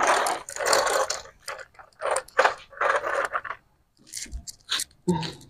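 Plastic toy trucks pushed and scraped over a gritty floor, crunching and rattling in three short bursts. A child's voice sounds briefly near the end.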